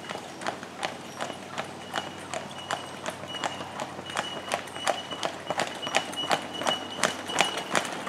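Hooves of a team of Percheron draft horses clip-clopping at a walk on a paved road, about two sharp clops a second, growing louder toward the end as they come closer.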